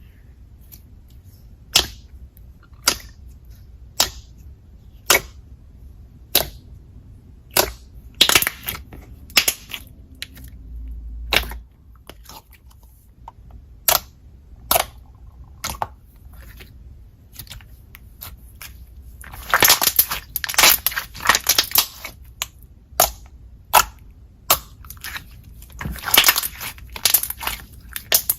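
Thick glossy slime being pressed and poked, making sharp pops and clicks about once a second, with quick runs of crackling pops around two-thirds through and again near the end.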